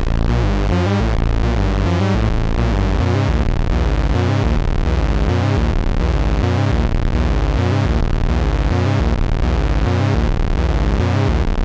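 ARP Avatar synthesizer playing a held, buzzy tone from its two oscillators mixed together, Oscillator 2's sawtooth with Oscillator 1 brought back in. The tone is steady in loudness and shifts in a pattern that repeats about once a second.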